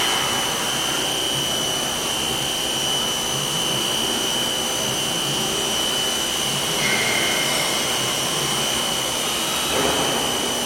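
CNC milling machine running, with a steady high-pitched whine over a hiss. A short extra tone comes in about seven seconds in, and the noise swells briefly near the end.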